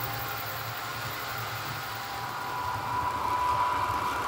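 H0 model trains running on the layout: a steady rolling rumble of small metal wheels on the track with a thin, high motor whine that grows louder about three seconds in.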